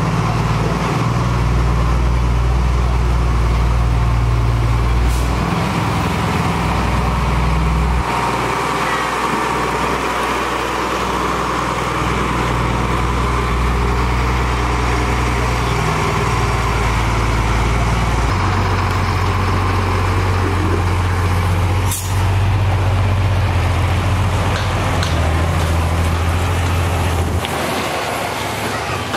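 Heavy road-construction machinery running with a steady, loud engine drone whose low pitch shifts a few times, with a brief sharp hiss or clack now and then.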